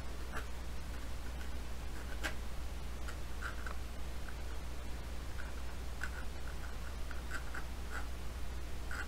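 Pencil sketching on a painting surface in short, light scratching strokes, with a steady low hum underneath.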